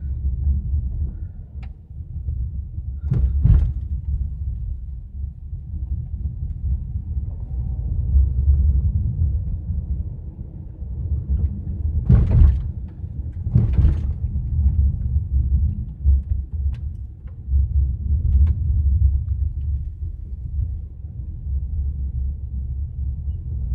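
Car's low road rumble heard from inside the cabin while driving on a rough country road, with a couple of thumps about three seconds in and two more near the middle.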